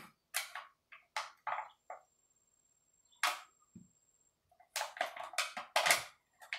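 Short scrapes and crinkles of thin aluminium shims cut from drink cans being worked loose from between the piston's lip seal and the bore of a 4L60E reverse input drum. A few separate ones come first, then a quick cluster near the end.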